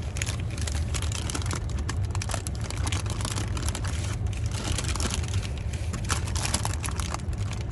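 Close-up eating sounds: a sandwich being chewed with many small crunches and wrapper crinkles, over a steady low hum.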